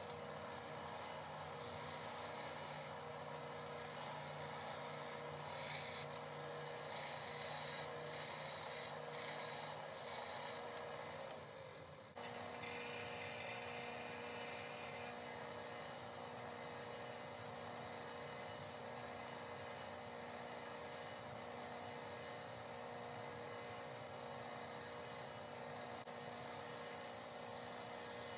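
Small benchtop wood lathe running with a steady motor hum while a hand-held turning tool scrapes and rasps against the spinning wooden handle blank. The sound changes abruptly about twelve seconds in, then runs on steadier.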